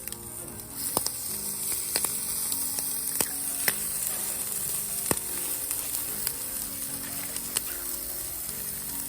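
Food sizzling in a hot frying pan, a steady hiss that grows louder just under a second in, with scattered sharp pops of spattering fat.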